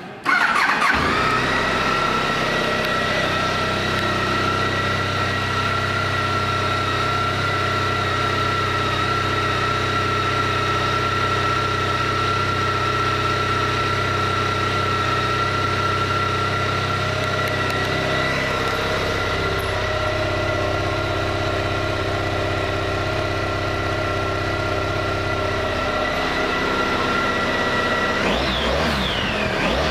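2007 Honda ST1300's V4 engine starting and settling into a steady idle, then revved with a twist of the throttle near the end.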